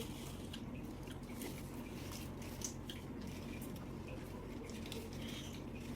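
Close-up eating sounds: wet chewing and mouth smacks, with scattered small clicks, over a steady low hum.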